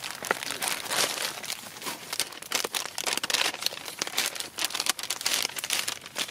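MRE meal packaging crinkling and crackling irregularly as it is opened and its contents handled.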